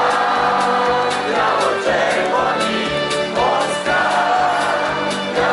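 Loud live concert music over a PA, heard from within the audience: a sung vocal melody, with several voices singing, over a steady drum beat.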